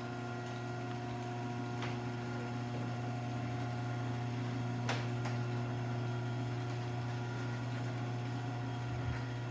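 Craftsman belt-drive garage door opener running, its motor giving a steady hum as it drives the door, with a couple of faint clicks along the way.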